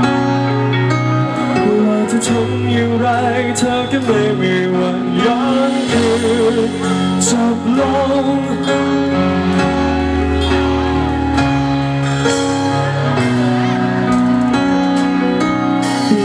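Live band playing a ballad's opening on a concert PA: sustained keyboard-like chords over a stepping bass line, with a male singer's wavering vocal over them.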